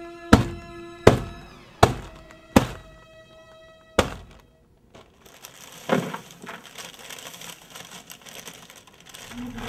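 A metal pipe strikes a block of dry ice five times, sharp ringing knocks about every three-quarters of a second. After a pause comes a single thud, then crunching and rustling as broken dry ice chunks are handled into a plastic bucket.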